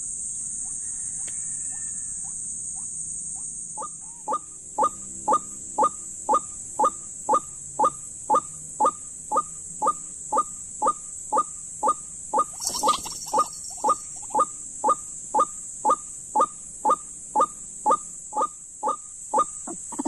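White-breasted waterhen calling: a short rising note repeated evenly about twice a second, starting about four seconds in, over a steady high-pitched insect buzz. A brief rustle comes a little past halfway.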